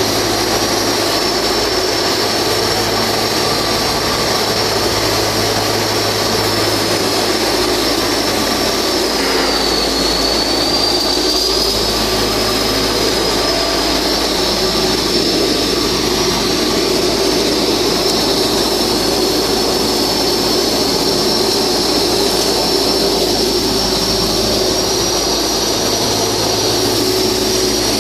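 Flux-cored arc welding run vertically: a loud, steady hissing roar that does not break, over a constant high whine and a low hum.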